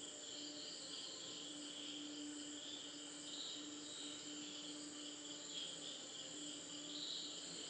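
Faint steady chirring of insects, with a faint low hum that comes and goes.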